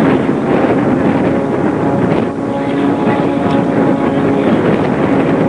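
Zlin Z-50 aerobatic plane's piston engine and propeller running steadily at high power, with wind rushing over the microphone.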